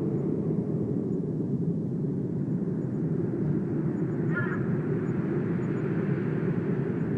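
Steady low rumbling outdoor ambience, with one short bird call about four and a half seconds in.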